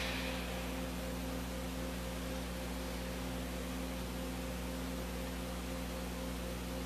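Steady electrical hum and hiss of the microphone and sound system, with no other events; the tail of a louder sound fades away at the very start.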